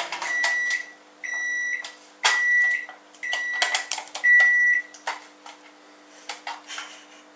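Microwave oven beeping five times, about once a second, to signal the end of its heating cycle; part of its steady running hum stops just before the first beep. Short clicks and knocks of handling fall between the beeps.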